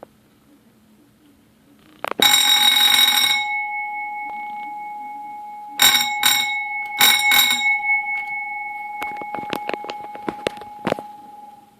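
Wheelock fire alarm bell ringing in short bursts. A click comes first, then about a second of rapid hammer strikes on the gong, then several shorter bursts and a few single strikes. After each burst the gong rings on and fades slowly.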